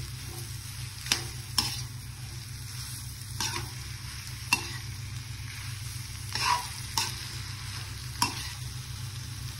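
A metal spatula stirring and scraping pork and chopped banana flower frying in a wok, over a steady sizzle and a low hum. Several sharp clinks of the spatula against the pan and a couple of longer scrapes come at irregular moments.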